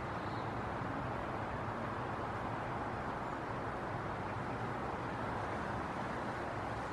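Steady outdoor background noise, an even rumble and hiss with a low hum underneath, with no distinct event standing out.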